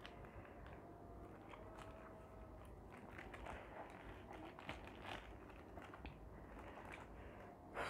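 Faint crinkling of a paper food wrapper being unfolded, with quiet chewing, over low room tone.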